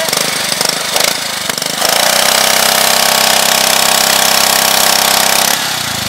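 Honda GCV190 pressure washer engine, a single-cylinder four-stroke, running with an uneven rattle. About two seconds in, a loud steady hiss with a held hum comes in as the gun sprays, and it cuts off suddenly near the end.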